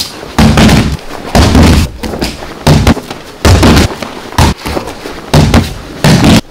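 Judo throws landing on the mat: a series of loud, booming thuds about a second apart.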